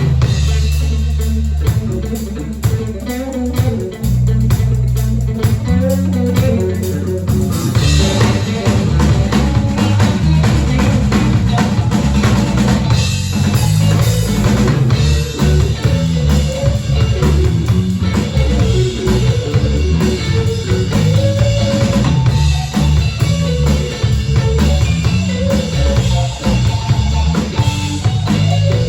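Rock band playing an instrumental passage with no vocals: drum kit, guitar and bass. The band grows fuller and brighter about eight seconds in.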